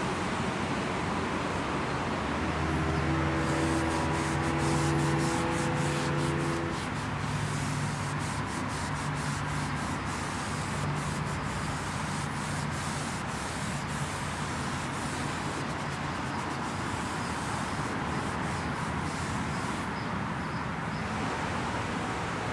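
A wipe rubbing and scrubbing along a car's plastic window visor and door trim, a steady hiss with short breaks between strokes. Steady traffic noise underneath, with a low hum of a passing vehicle between about three and seven seconds in.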